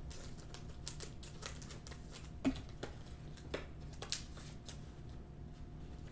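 Faint clicks and light rustling of trading cards being handled, a dozen or so soft ticks over the first four seconds, over a low steady hum.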